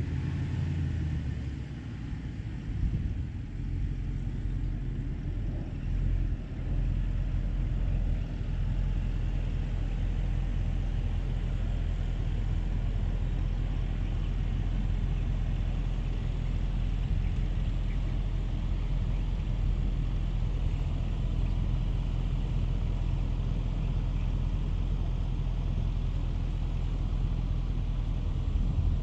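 Range Rover Sport engine running at low revs as the SUV crawls in 4WD low range over a sand berm and down its face: a steady low rumble, uneven for the first several seconds and then even.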